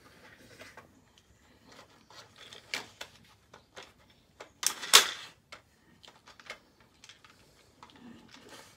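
Plastic dog puzzle feeder clicking and rattling as a beagle noses and shifts its covers in search of treats: irregular light clicks, with a louder clatter about five seconds in.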